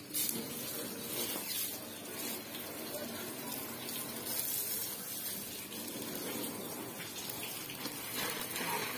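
Water from a garden hose spraying and splattering onto a tractor's painted metal bodywork and loader frame: a steady hiss and splash of water on metal.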